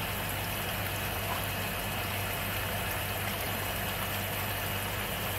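Water running steadily through shallow abalone nursery tanks over a low, steady machine hum.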